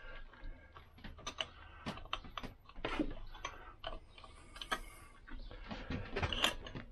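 Light, irregular metallic clicks and taps as a piston and its wrist pin are handled and lined up on the little end of a Lambretta engine's connecting rod.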